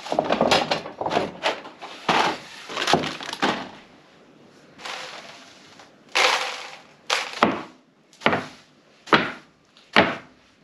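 A stiff broom sweeping wood chips and shavings off a wooden workbench top, with bits of debris scattering. Quick, close-spaced strokes come first, then five separate loud sweeps about a second apart near the end.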